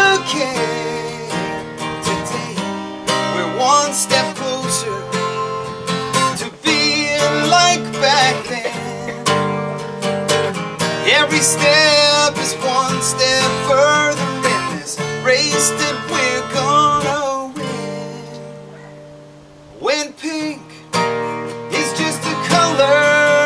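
A man singing a country song while strumming a steel-string acoustic guitar. Near the end the guitar and voice die away for a couple of seconds before strumming and singing pick up again.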